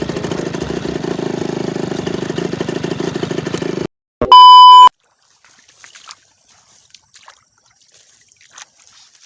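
A loud, dense, rapidly pulsing sound cuts off abruptly about four seconds in. Right after it comes a very loud beep of one pure tone lasting about half a second. Then there is near silence with a few faint scattered ticks.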